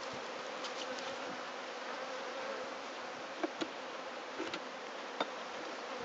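A colony of honeybees buzzing steadily from an open brood box. A few light knocks come a little past the middle.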